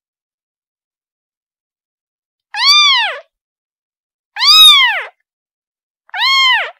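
Kitten meowing: three high-pitched meows about a second and a half apart, each rising then falling in pitch, with dead silence between them. They are a kitten's calls for its mother.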